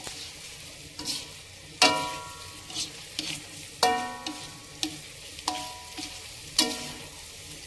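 Wooden spatula stirring meatballs in a metal wok over a light sizzle, with about five knocks of the spatula on the wok, each leaving the pan ringing briefly; the loudest knocks come about two and four seconds in.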